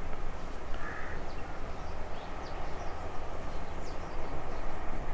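A crow caws once, about a second in, over steady background noise, with faint short squeaks of a marker writing on a whiteboard.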